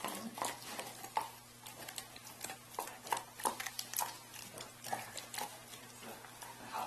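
A dog crunching and chewing frozen raw chicken, the bones cracking between its back teeth in irregular sharp crunches, two or three a second.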